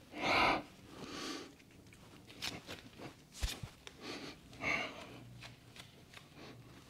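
A person breathing out audibly through nose and mouth during a yoga transition, with soft taps and thuds of hands and feet on a yoga mat as he steps back into downward-facing dog; the firmest thud comes about three and a half seconds in.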